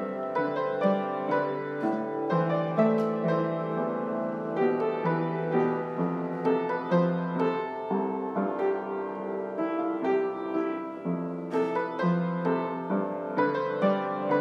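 Background piano music, a melody of struck notes that ring and fade, several notes a second.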